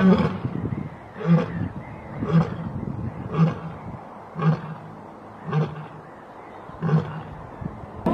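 Male lion roaring: a run of seven short, deep grunting calls about a second apart, the first the loudest and the gaps slowly lengthening. This is the grunting tail that ends a lion's roaring bout.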